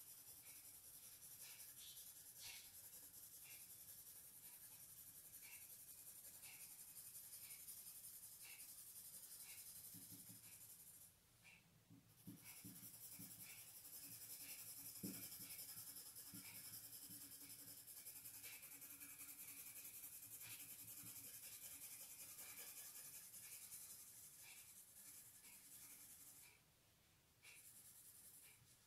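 Faint scratching of a black crayon on drawing paper in short, repeated strokes, about one a second, as tree branches are sketched, over a steady faint hiss.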